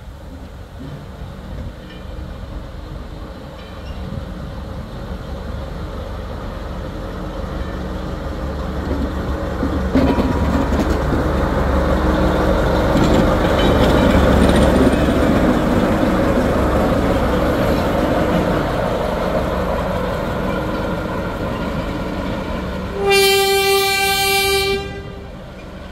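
Train running, its rumble growing louder over the first half and then holding steady. Near the end a horn sounds one steady note for about two seconds.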